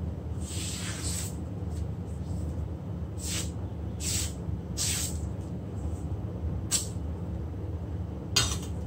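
Freshly sharpened Chinese cleaver slicing through hanging strips of newspaper, a short papery swish with each cut: six cuts, the first a little longer. The clean cuts are a paper test of the new edge. A steady low hum runs underneath.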